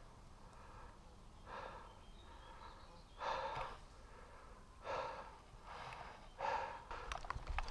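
A person breathing hard close to the microphone: about five short, hissing breaths at uneven gaps.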